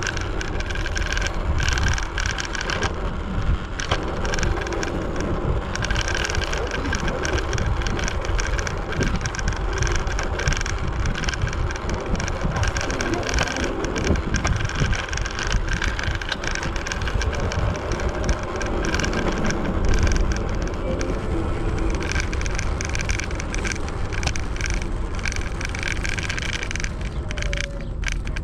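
Segway Ninebot ES4 electric scooter rolling on its solid tyres, a continuous rumble with quick, steady rattling from the hard tyres and frame vibrating over the road surface.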